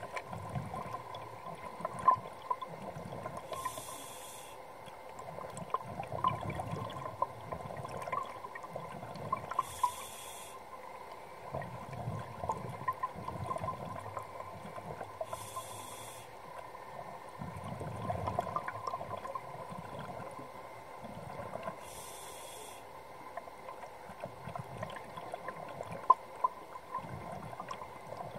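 Scuba diver breathing through a regulator, heard underwater: a short hiss of inhalation about every six seconds, four times, with exhaled bubbles rumbling and crackling in between. A faint steady tone runs underneath.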